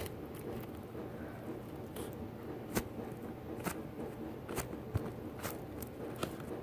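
Foam squishy toy being squeezed close to the microphone, giving faint, irregular crackles and clicks, a few sharper ones standing out.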